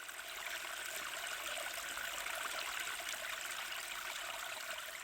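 Steady rushing and splashing of water from a small waterfall running over rocks. It swells a little in the middle and eases off near the end.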